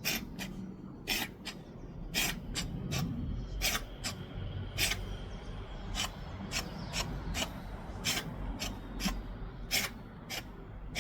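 Red fox coughing: a long run of short, dry, raspy hacks, about two a second. The uploader guesses an allergy or hay fever as the cause.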